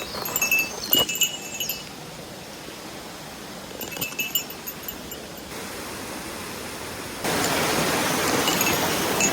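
Steady rushing noise of flowing water on a mountain trail, jumping abruptly louder and quieter where clips are cut together. Short bursts of small, high metallic jingling ring out over it a few times.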